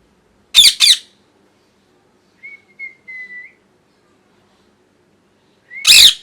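Pet ringneck parrot calling: two loud screeches in quick succession, a soft whistle a couple of seconds later, then another loud screech near the end.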